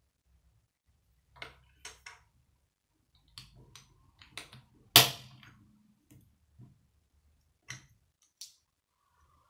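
Small plastic Lego plates clicking as they are handled and pressed together, a scattered series of sharp clicks with one much louder snap about five seconds in.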